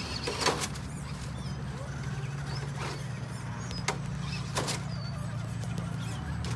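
Electric drive motor of a Vaterra Ascender RC crawler whining steadily as the truck creeps along. A few sharp knocks come at uneven intervals.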